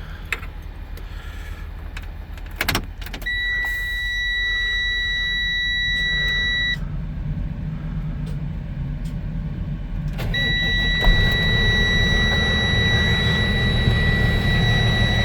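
Freightliner truck's diesel engine running, with a few clicks early on and a steady high-pitched warning buzzer that sounds for about three seconds, stops, then comes back on and holds while the engine gets louder. The buzzer is typical of a low air pressure warning while the air system builds pressure.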